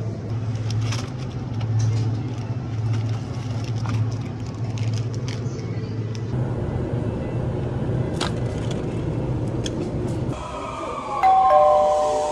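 A steady low hum pulsing about once a second, with scattered light clicks and knocks. About ten seconds in, a JR electric train pulling into the platform takes over: its motor whine falls in pitch, and two high steady tones ring out near the end as it brakes.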